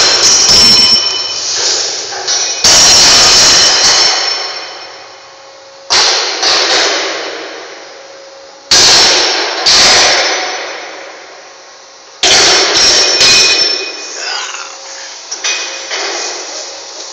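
Heavy metallic bangs of a steel loading bucket striking the empty steel hold of a ship. Each bang rings and echoes, dying away over a couple of seconds.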